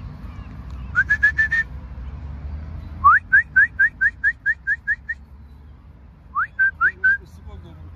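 A person whistling in three quick runs of short rising notes, about four a second, the middle run the longest.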